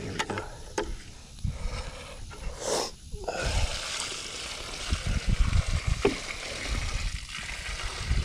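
Footsteps and rustling on grass with a plastic 5-gallon bucket being handled, then from about three seconds in a steady rush of water poured from the bucket onto loose soil around a newly planted tree.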